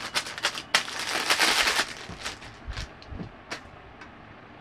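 Crinkling, crackling noises: a dense run of crackles for about a second, then a few scattered clicks.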